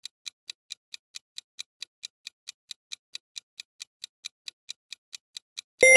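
Countdown-timer clock-ticking sound effect: rapid, even ticks, about four a second. Just before the end it gives way to a bright bell ding that rings on with several tones, marking that time is up.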